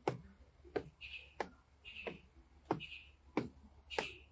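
Footsteps climbing wooden stairs: evenly paced knocks of shoes on the treads, about three steps every two seconds.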